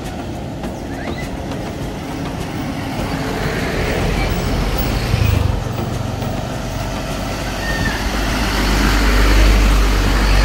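Road traffic with a bus driving past close by: a low engine rumble builds from about four seconds in and is loudest near the end.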